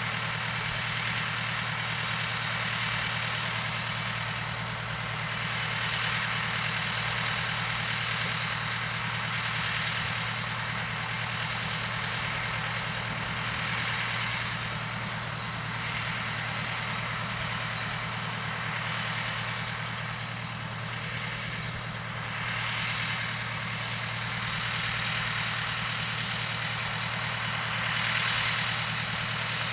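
Case IH MX100C tractor's diesel engine idling, a steady low hum.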